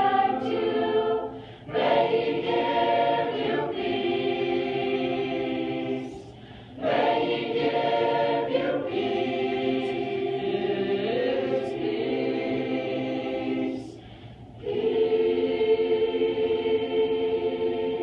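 Mixed youth choir singing a cappella, holding long sustained phrases with three short breaks between them.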